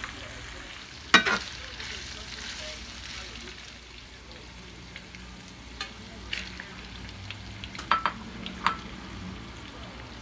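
Pork sizzling steadily as it fries in a skillet, with sharp clinks of a utensil against the pan, the loudest about a second in and several more in the second half.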